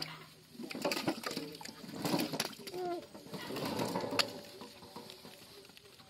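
Custard apples tumbling off a metal tray into a metal cooking pot: a run of knocks and thuds as the fruit drops and rolls against the pot, busiest in the first four seconds, the sharpest knock a little after four seconds.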